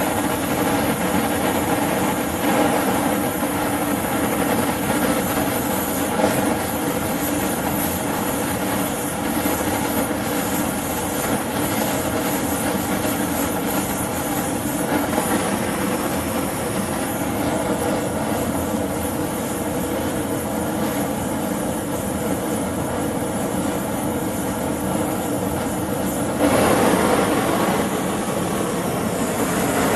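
High-temperature LPG/propane torch burning at full bore: a steady rushing flame noise with faint steady tones in it. It grows louder for a couple of seconds about 26 seconds in.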